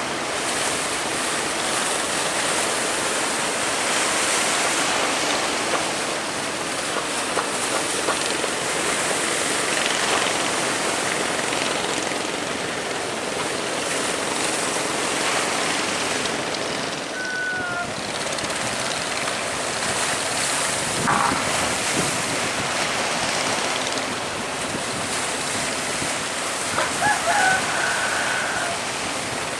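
Sea waves and wind rushing steadily, with wind buffeting the microphone. A few short, faint high tones sound about halfway through and again near the end.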